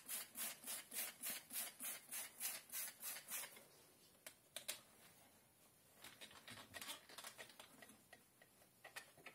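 Hand trigger spray bottle squirting water onto window glass in quick, even pumps, about three a second, stopping about three and a half seconds in. A few faint clicks and taps follow.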